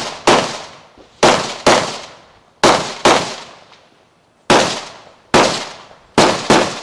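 Rifle fired in rapid shots during a timed action rifle stage: about ten sharp reports, mostly in pairs about half a second apart, with a pause of a second or more between pairs, each trailing off in echo.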